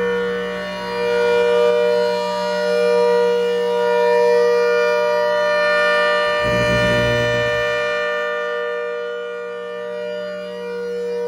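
ACA Hurricane 130 rotating outdoor warning siren, supercharged by a Roots blower, sounding at full power: a steady, loud wail that swells and fades as the horn turns. About six and a half seconds in, as the horn faces the microphone, a brief low rumble joins it.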